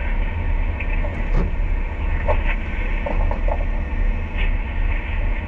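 Liebherr LTM mobile crane's diesel engine running steadily, a continuous low rumble heard from inside the operator's cab.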